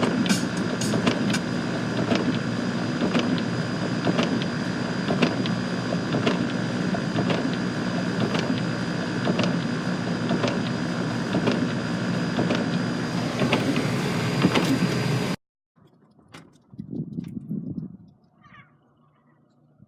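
A steady machine-like running noise with a low hum and scattered clicks, which cuts off abruptly about fifteen seconds in, leaving only faint sounds.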